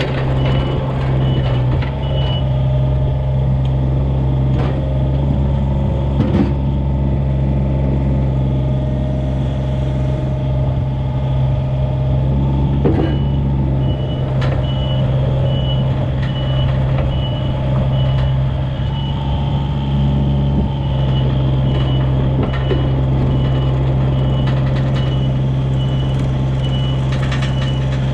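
Komatsu PC27 mini excavator's diesel engine running steadily under travel, with its travel alarm beeping rapidly for the first couple of seconds and again through the second half. A few light clanks come through over the engine.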